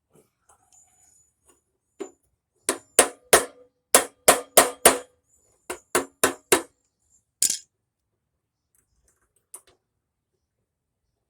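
A run of about a dozen sharp knocks, in short groups of roughly three a second, each with a brief ring: hard parts being tapped or knocked together while the heater box is being assembled.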